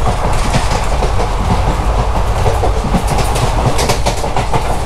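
Inside a moving ICF passenger coach: a steady running rumble from the wheels and bogies, with the wheels clacking over rail joints now and then.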